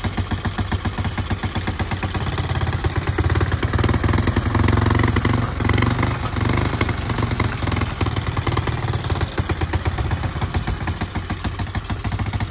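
Small single-cylinder four-stroke Honda ATC70 engine running steadily with a fast, even firing beat, getting a little louder in the middle.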